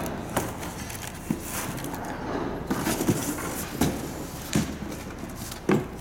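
Cardboard packaging and a moulded-pulp parts tray being handled and set down on a wooden pallet: scraping and rustling with half a dozen dull knocks, the loudest near the end.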